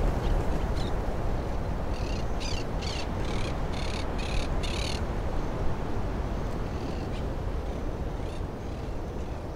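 A bird calling in a quick run of about eight harsh, raspy notes, two to three a second, ending abruptly, with a few faint chirps from other birds. Under it is a steady low outdoor rumble.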